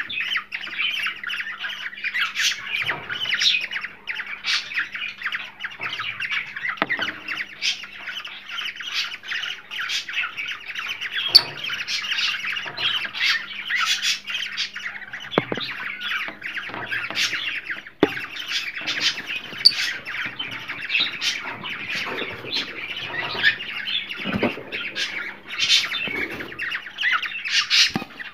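Several cockatiels chattering, squawking and calling without a break, the dense twittering of a flock, over a faint steady hum.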